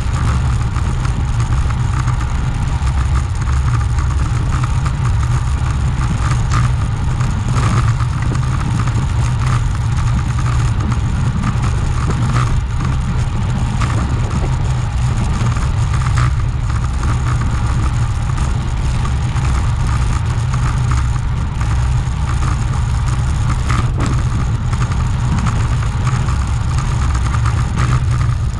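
Steady low wind roar over the microphone while riding a bicycle at speed, with road noise underneath and a few faint clicks.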